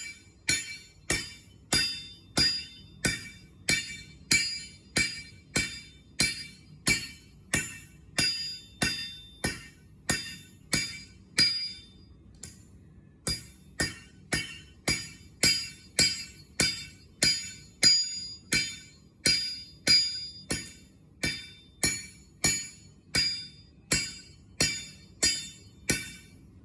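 Blacksmith's hammer striking metal on an anvil in a steady rhythm, a little under two blows a second, each blow ringing. The hammering pauses briefly about twelve seconds in, then resumes and stops suddenly.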